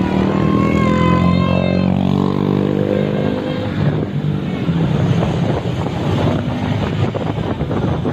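Many motorbikes running together on a street, heard from one riding among them. A sustained, wavering horn tone sounds over the traffic for about the first two seconds.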